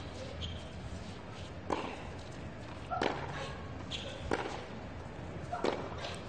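Tennis ball being struck back and forth in a baseline rally: four sharp racket hits about 1.3 seconds apart, over a steady low hum from the stadium crowd.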